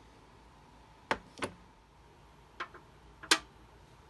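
Three pairs of short, sharp clicks and taps of hard objects being handled, the last pair the loudest, over a faint steady hum.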